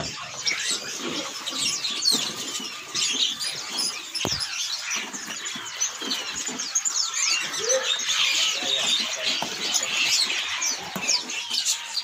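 Many caged songbirds chirping and twittering at once, a dense chatter of short, high calls overlapping throughout. A single sharp knock comes about four seconds in.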